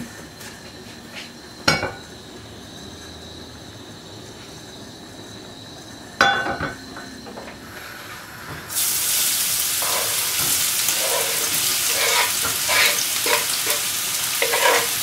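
Vegetable oil heating quietly in a frying pan, with a couple of sharp knocks. About nine seconds in, grated carrot and chopped onion tipped in from a wooden board hit the hot oil and a loud, steady sizzle starts suddenly. Small clatters of vegetable pieces dropping in run through the sizzle.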